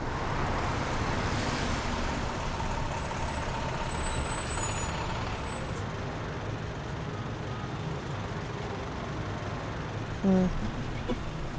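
A passenger minibus's engine and road noise as it pulls up at the kerb, with a hiss in the first couple of seconds and a thin high brake squeal around the middle. A short loud pitched tone sounds near the end.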